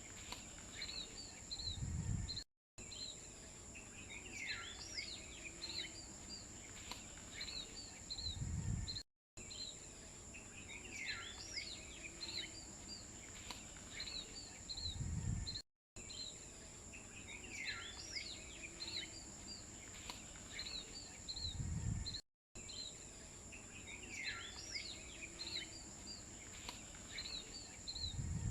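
Birds chirping over a steady high whine, a short outdoor-ambience clip looped about every six and a half seconds. Each loop point brings a low thud and a brief dropout.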